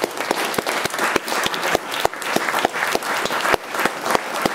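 Audience applauding in a lecture hall, many hands clapping steadily, with a few louder claps close to the microphone standing out.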